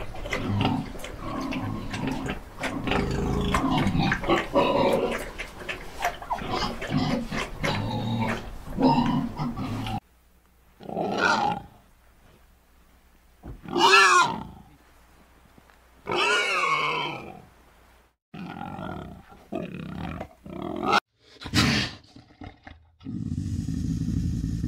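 Domestic pig grunting and snuffling in a rapid run of short grunts, then a black boar giving a few separate, longer calls that bend up and down in pitch, with pauses between them. A steady low rumble sets in near the end.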